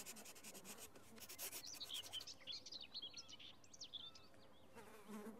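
Faint scratching of chalk on a wall for about the first second, then faint, quick chirps of small birds for a few seconds.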